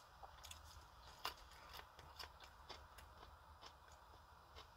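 Faint crisp crunches of raw radish being chewed, coming as irregular clicks about every half second.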